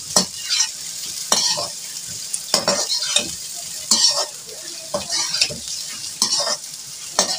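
Sliced onions sizzling in hot oil in a metal wok, stirred with a metal spoon that scrapes and knocks against the pan about once a second over a steady frying hiss.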